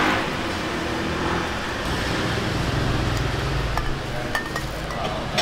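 Steady background din of a busy pho shop, with a few light clinks of bowls and utensils in the second half.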